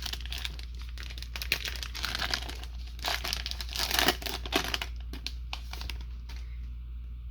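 Plastic trading-card pack wrapper being torn open and crinkled by hand, busiest around the middle and dying away near the end.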